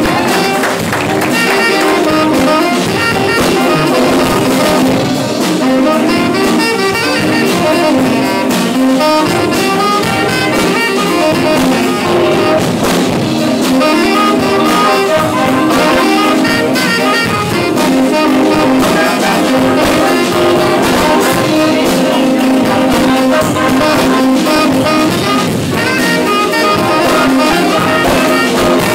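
Jazz band playing live: saxophones and brass carry the tune over a steady drum kit beat.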